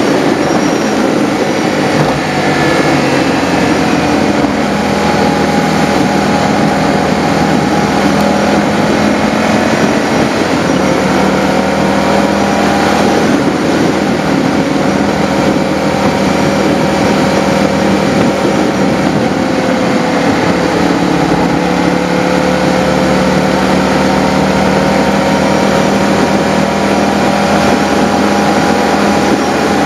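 Motorcycle engine running at a steady road speed, with a constant rush of wind and road noise. The engine note drifts gently, dipping slightly about twenty seconds in and then climbing again.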